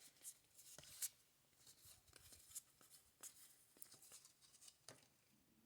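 Faint soft clicks and rustles of cardboard baseball cards being handled and sorted by hand, scattered irregularly.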